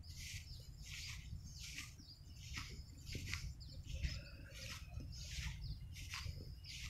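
Outdoor wildlife chirping: short high-pitched chirps repeating about twice a second, over a steady low rumble.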